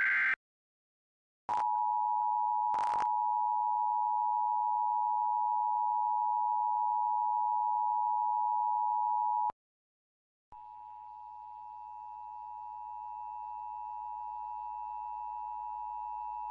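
Emergency Alert System tones: the end of a warbling data burst, then the steady two-tone EAS attention signal held for about eight seconds before it cuts off. After a second of silence a second, quieter two-tone attention signal starts with a low hum under it and slowly grows louder.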